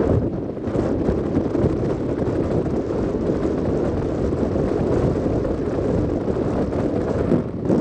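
Wind buffeting the microphone: a steady, rumbling noise with no speech.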